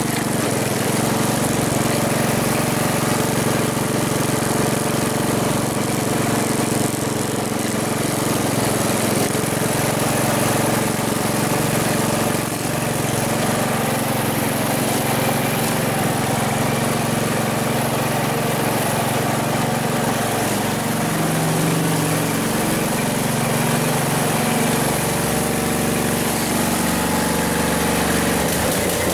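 1969 Chevy Malibu's engine running steadily.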